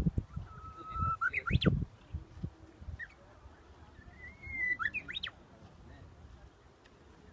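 Japanese bush warbler singing its spring song twice: each song is a long steady whistle followed by a quick flourish of rising notes, the second starting about four seconds in. A few low thumps come with the first song.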